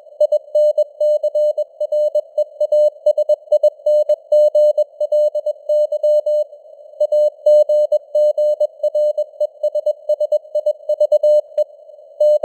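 Morse code sent at 21 words per minute: a single mid-pitched tone keyed on and off in dots and dashes, over a narrow band of simulated radio receiver noise hiss. One longer gap in the keying comes about seven seconds in.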